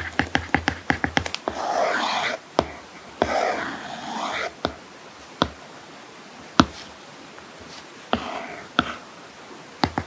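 Apple Pencil tip tapping on an iPad's matte paper-like screen protector: a quick run of handwriting taps, then two swishing slides across the screen, then a few single taps about a second apart, and quick writing taps again at the very end.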